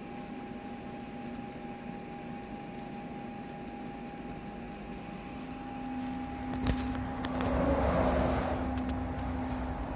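Eco-solvent wide-format printer running: a steady machine hum with a constant tone. A lower tone joins about halfway, two sharp clicks follow, then a louder rushing noise near the end.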